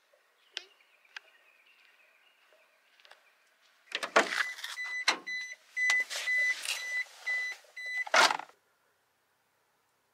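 Kei van's warning beeper beeping steadily, about twice a second, over clunks and rustling of someone climbing into the cab; the beeping stops just before a heavy thump near the end.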